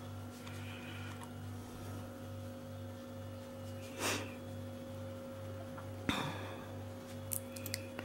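Steady low hum of a running household appliance, pulsing gently, with a breath about four seconds in and a soft knock about six seconds in, then a few light clicks near the end.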